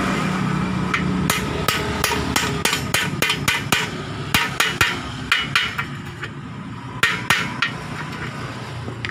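Hammer tapping a greased bushing into the pivot of a Yamaha Vixion motorcycle's swing arm: a run of quick sharp metal strikes, about three or four a second, starting about a second in, then a short pause and three more blows.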